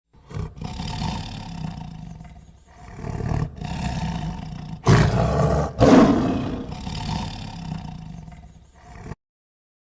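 A big cat roaring: four runs of rough, low roars, the loudest a little past the middle, stopping short about a second before the end.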